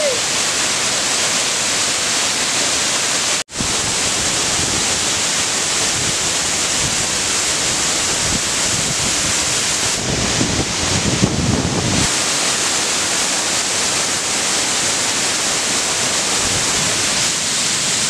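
Waterfall's steady rush of falling water, cut off for an instant about three and a half seconds in. A low rumble joins it for a couple of seconds past the middle.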